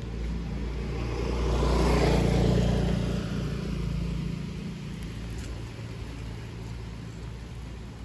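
A motor vehicle passing by: its engine and road noise grow louder to a peak about two seconds in, then slowly fade away.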